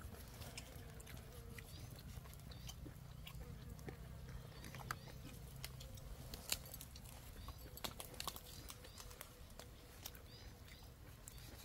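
Faint chewing and small irregular clicks and snaps of people eating food by hand, over a low steady background hum.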